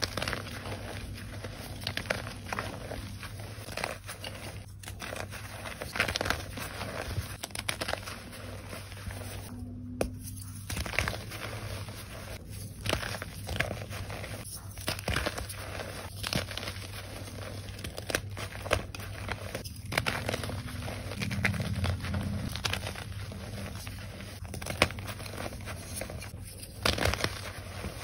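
Hands squeezing and crumbling reformed gym chalk, with soft powdery crunches and crackles coming thick and irregular and a few sharper crunches standing out.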